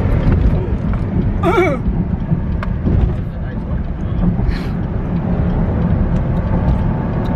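Car being driven on a highway, heard from inside the cabin: a steady low rumble of engine and road noise. A short wavering vocal sound, like a brief exclamation, comes about a second and a half in.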